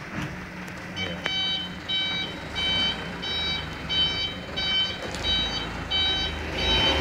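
Mitsubishi Canter dump truck's reversing alarm beeping about one and a half times a second, starting about a second in, over the low hum of the truck's engine as it backs up.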